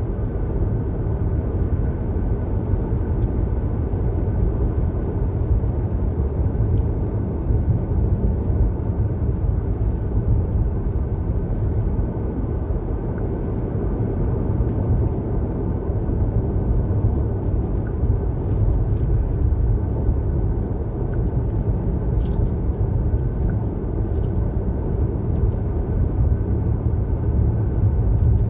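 Steady low road rumble of a car driving along, with no change in pace.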